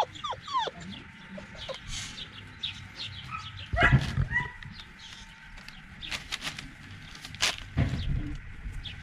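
Young American Collie puppies whimpering in short, high squeaks that fall in pitch. The squeaks are densest near the start. Scattered clicks and knocks of the puppies moving about follow, with a louder thump and a short cry about four seconds in.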